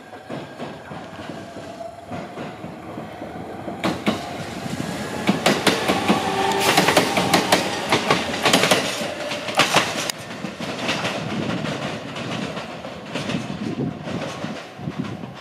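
E129 series electric train pulling away: the whine of its traction motors rises in pitch as it accelerates, then its wheels clack over the rail joints, loudest as the cars pass close by, before easing off as it draws away.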